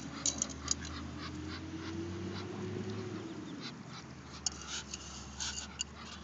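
Muscovy ducks pecking corn from a plastic cup, with a few short sharp clicks of beaks on the cup and kernels. Under them runs a low droning tone that slowly rises and falls, then fades out a little over halfway through.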